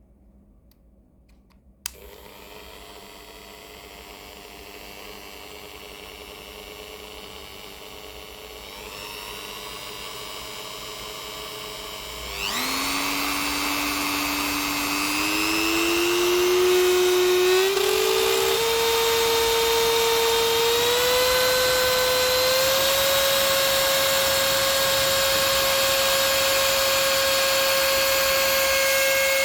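Corded rotary tool switched on with a click about two seconds in, running quietly at first. From about twelve seconds in it runs louder and its speed is stepped up several times, its whine rising in steps before holding at a steady high pitch.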